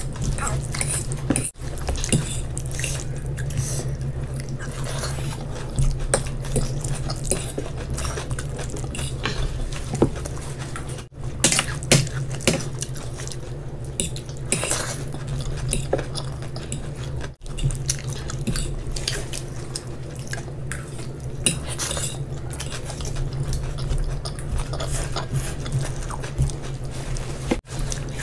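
Close-up eating sounds: wet chewing and mouth noises, with a fork clinking against ceramic plates and bowls, over a steady low hum. The sound drops out briefly four times.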